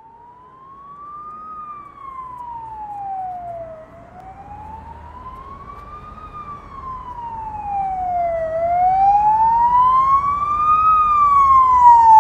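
Emergency vehicle siren in a slow wail, its pitch rising and falling in long smooth sweeps, a full cycle about every four and a half seconds, growing steadily louder.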